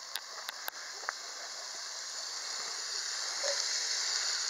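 Bacon sizzling in a cast-iron Dutch oven over a campfire, a steady frying hiss that grows louder from about two seconds in, as diced red onion goes into the hot fat near the end. A few light clicks sound in the first second.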